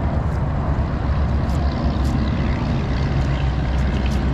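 A small fishing boat's motor running steadily at low speed, a constant low hum.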